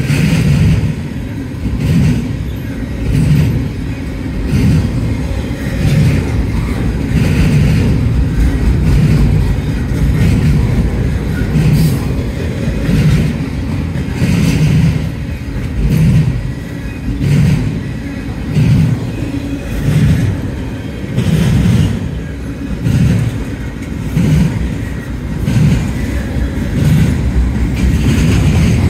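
Double-stack intermodal freight train rolling past at close range: a steady rumble of wheels on rail with rhythmic clacking that swells about every second and a half as the cars go by.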